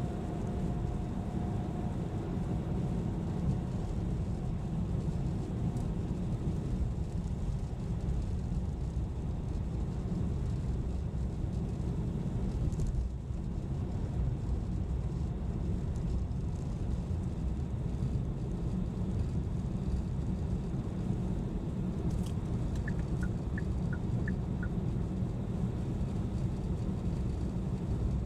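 Steady low rumble of a car's tyres and engine heard from inside the cabin while driving on snowy roads, with a faint steady tone fading out in the first few seconds and a few short, faint high chirps near the end.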